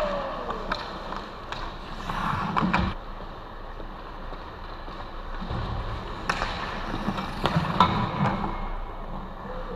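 Ice hockey play: skate blades scraping and carving on the ice in two busier stretches, with several sharp clacks of sticks and puck.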